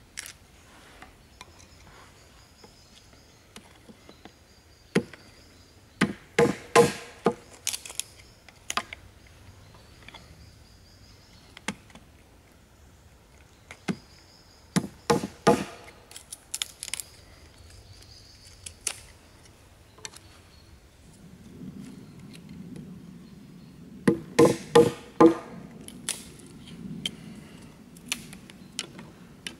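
Gränsfors Bruk mini hatchet chopping and splitting small sticks of wood against a log for kindling: three bursts of quick strikes, with single knocks in between.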